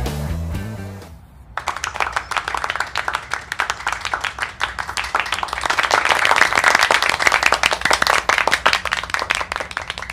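Many hands clapping in applause, starting about a second and a half in, growing louder through the middle and dying away near the end. Background music fades out just before it.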